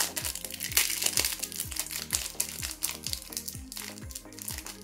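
Small clear plastic parts bag crinkling as it is handled, loudest in the first couple of seconds, over background music with a steady beat.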